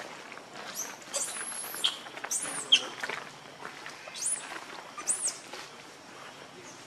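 Baby pig-tailed macaque giving a string of high, thin squealing cries that rise and fall in pitch, the longest starting about a second in, while held and handled by its mother. The cries stop after about five seconds.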